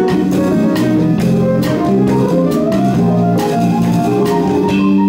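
Small live band playing a song: drum kit keeping a steady beat of about two hits a second under bass guitar, guitar and piano.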